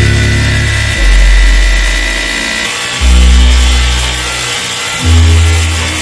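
Background music with a deep bass note about every two seconds, over the steady hiss and motor whine of a Craftsman V20 cordless pressure washer spraying a low-pressure (350 PSI) jet of water through an AC condenser coil.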